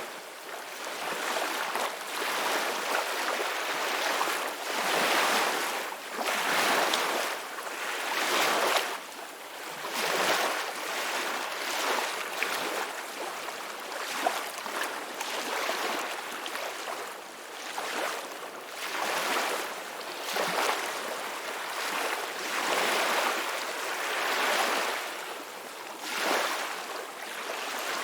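Ocean waves breaking and washing onto a shore, a hiss of surf that swells and fades every two to three seconds.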